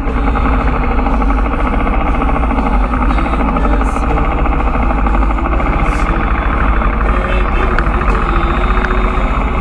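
Royal Enfield motorcycle engine running steadily at low speed, a rapid, even pulsing heard from the bike itself.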